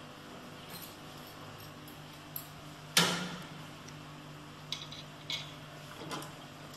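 Metal clamp parts being handled, knocking and clinking against each other and the metal machine base: one sharp clank about three seconds in, then a few lighter clinks. A steady low hum runs underneath.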